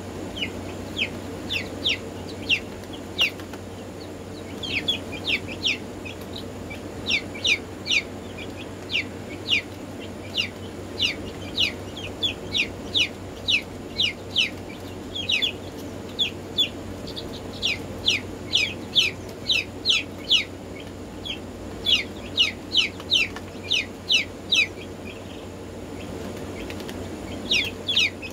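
Black Marans chicks peeping: many short, high, downward-slurred peeps in quick runs, with brief lulls between runs, over a steady low hum.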